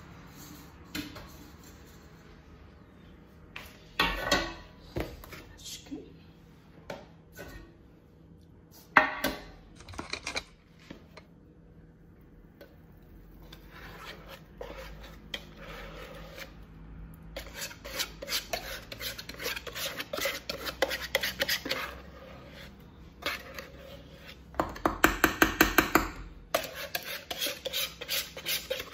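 Kitchen utensils knocking and scraping on a plastic mixing bowl of thick cake batter. There are scattered knocks and clinks at first, then a quieter stretch while the batter is poured into a baking tin. From about two-thirds in come quick repeated scrapes as the last of the batter is scraped out of the bowl.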